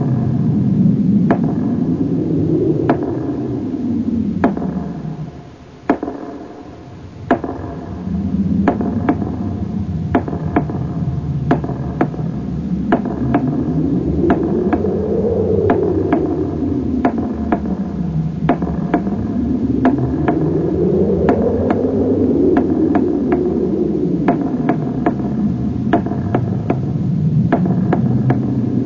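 Electronic synthesizer soundtrack: a hissing pad whose tone sweeps slowly up and down every few seconds, with sharp clicks and knocks scattered through it. The level drops briefly about six seconds in.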